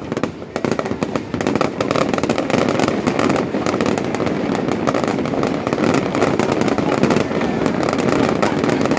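Fireworks display: a dense, unbroken run of bangs, pops and crackles from many shells bursting at once. It is sparser for the first half second, then packs tight.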